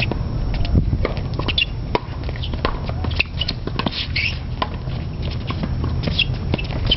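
Tennis doubles rally on a hard court: a string of sharp racket-on-ball hits and ball bounces, with short high sneaker squeaks on the court surface a few times. A steady low rumble runs underneath.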